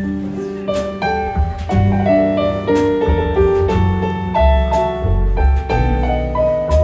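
Live jazz band playing an instrumental passage without vocals: piano to the fore over bass and light drums with cymbal strokes.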